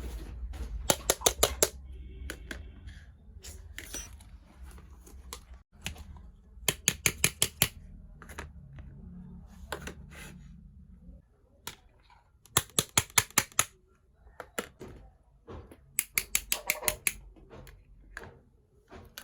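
Small hard toy kitchen pieces being handled and unpacked, clicking together in four quick runs of sharp clicks, each about a second long, with scattered single taps between them.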